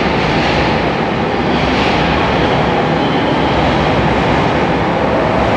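A train running: a steady, loud rumble and rushing noise that holds even throughout.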